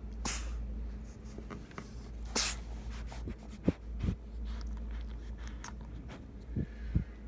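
A cat sneezing twice, two short hissing sneezes about two seconds apart, followed by a few sharp clicks and taps.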